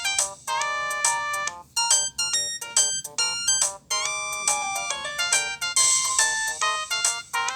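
A Nokia ringtone played on an LG B470 phone's loudspeaker: a fast melody of short electronic notes with a few held longer, and almost no bass.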